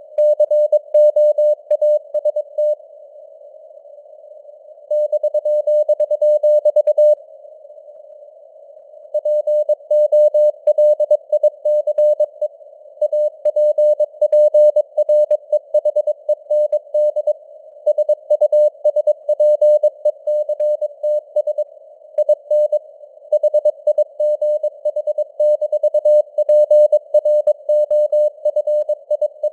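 Morse code (CW) sent at 22 words per minute: a single steady beep tone keyed on and off in quick dots and dashes over a narrow band of simulated radio hiss, as heard through a receiver. The keying breaks off twice for about two seconds, near the start and again a little later, leaving only the hiss.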